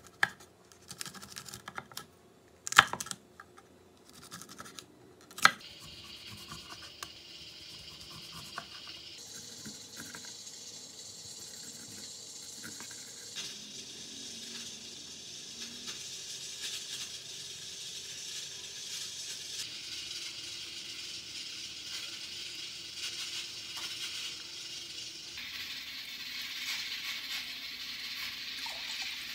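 Ceramic knife chopping green chili peppers on a wooden cutting board: a few sharp, uneven knocks in the first few seconds. After that there is a steady faint hiss with a few light clicks.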